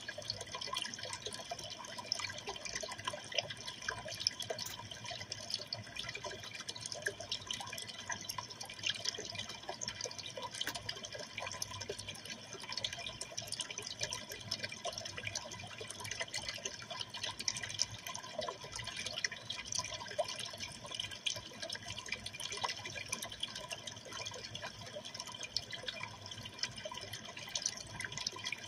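Water trickling and bubbling steadily in a running freshwater aquarium, with many tiny splashes and ticks.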